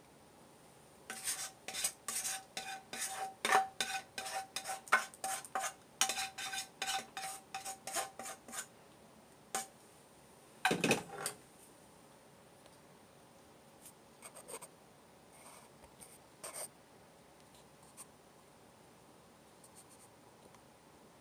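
A spoon scraping and knocking quickly against a frying pan, about three strokes a second, the pan ringing with each knock as the garlic sauce is scraped out. About eleven seconds in there is one heavier clunk of the pan set down on the stove, then a few faint knocks.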